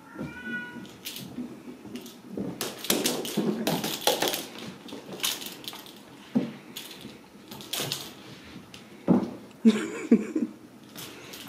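Ragdoll kittens playing: paws and claws scrabbling and skidding on a hardwood floor and rug, with irregular knocks and thumps, the loudest a few sharp thumps about nine to ten seconds in. A brief high kitten mew just at the start.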